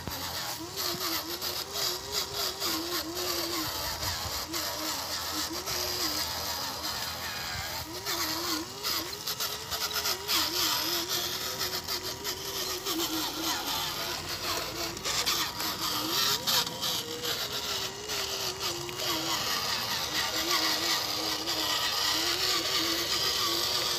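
Electric drive motor and gearbox of a homemade RC dump truck, loaded with soil, whining as it drives over rough dirt. The pitch wavers up and down with the load, and scattered clicks and knocks come through.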